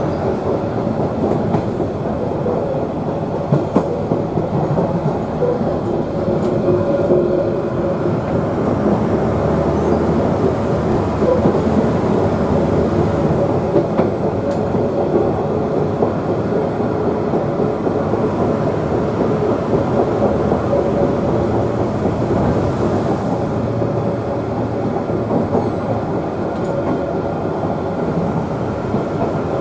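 A Queensland Rail 2000 class diesel rail motor running steadily, heard from on board the railcar, with the wheels clicking now and then over the rail joints.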